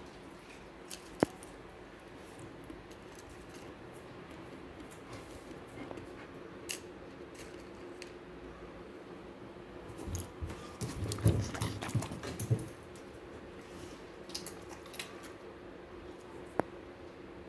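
A Labrador moving and nosing about close by: a few sharp single clicks, and a spell of uneven knocking and rustling about ten seconds in.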